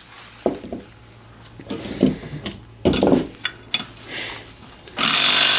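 Metal tools clink and knock against the engine as a socket is fitted onto a bolt. About five seconds in, a power impact wrench starts hammering steadily at a tight bolt.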